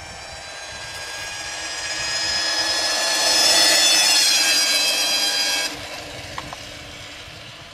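Over-volted 12-volt car starter motor, run on 24 volts, driving a bicycle: a high electric whine with many overtones that grows louder as the bike comes near and passes, then cuts off suddenly about six seconds in.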